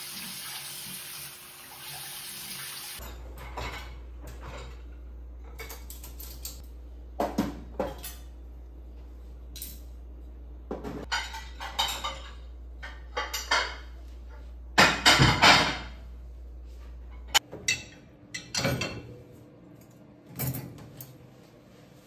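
A tap runs for the first few seconds, then dishes, pans and cutlery clatter and clink in irregular knocks, the loudest clatter about fifteen seconds in.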